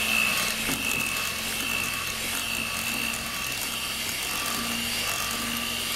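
Electric hand mixer running steadily, its two beaters whipping eggs into sweet potato pie filling, with an even, high motor whine.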